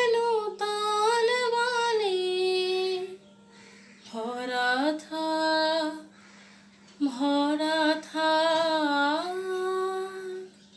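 A young woman singing solo and unaccompanied, in long held notes with ornamented turns, in three phrases with short pauses between them.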